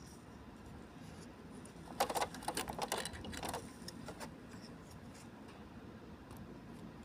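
A quick run of small clicks and rattles in an opened inkjet printer, lasting about a second and a half, followed by one more click, over faint room hiss.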